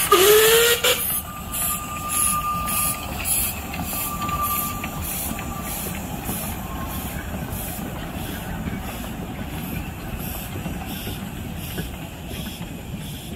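Narrow-gauge steam locomotives pulling a passenger train away: a loud hiss of steam in the first second, then exhaust chuffs about three a second, fading as the train leaves. A thin high squeal sounds twice in the first five seconds as the wheels take the curve.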